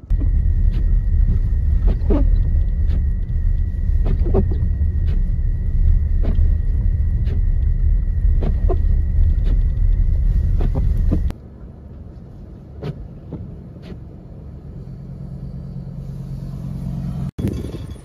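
Strong blizzard wind buffeting the microphone as a loud, unsteady low rumble for about eleven seconds. It then cuts off sharply to a much quieter rumble, with a steady low hum near the end.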